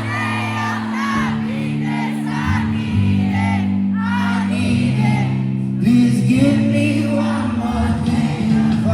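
Live music: a singing voice sings wavering melodic runs over sustained low chords, with the echo of a large hall.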